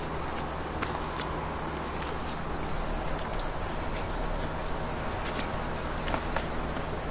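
Night insects, crickets, chirping steadily in a high, even pulse of about four chirps a second.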